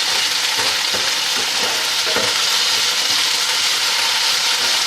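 Diced chicken sizzling in a hot frying pan: a steady frying hiss, with a few light knocks of a spatula stirring the pieces.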